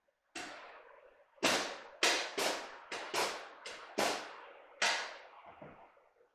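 Eggplant being slid by hand across a stainless steel mandoline slicer: about nine quick slicing strokes in a row, each a sharp swish that fades.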